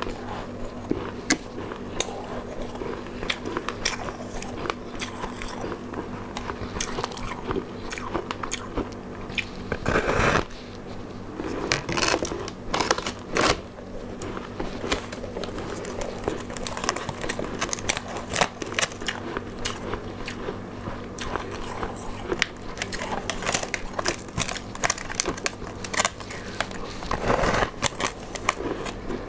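Close-up biting and chewing of a frost-covered frozen block, a run of crisp crunches and crackles as the frost and ice break between the teeth, with a few louder crunching bouts. A faint steady low hum sits underneath.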